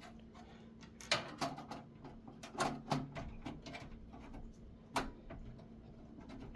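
Screwdriver taking screws out of an old desktop computer case: irregular small clicks and light metal taps, a few sharper knocks among them.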